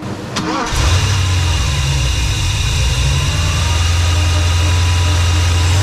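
Mercedes 560SEC V8 engine running steadily after a brief break and a click about half a second in.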